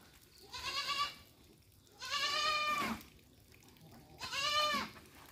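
Goat bleating three times, high calls of under a second each about two seconds apart, the middle one sliding down in pitch at its end. The crying is a goat kid calling to be bottle-fed with milk.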